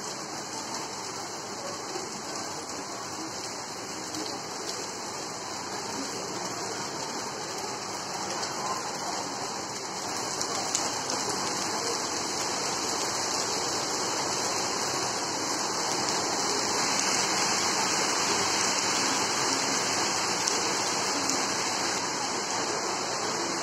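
Heavy rain falling, a steady hiss that grows louder about ten seconds in.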